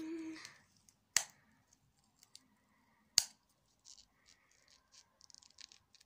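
Two sharp clicks about two seconds apart, then a run of faint small clicks and rustles: small objects being handled on a table.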